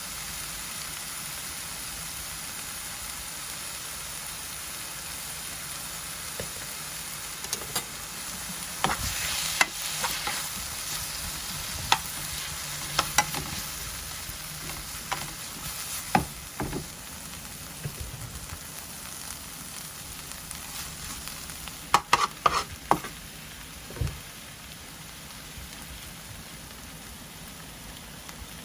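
Food sizzling steadily in a frying pan, with a utensil scraping and tapping against the pan every few seconds as it is stirred.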